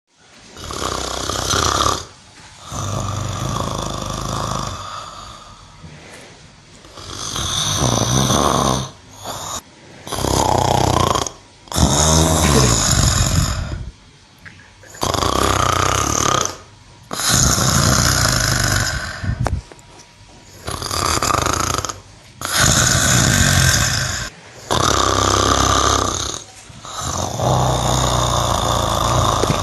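A sleeping cow snoring: long, noisy breaths in and out, repeating every couple of seconds.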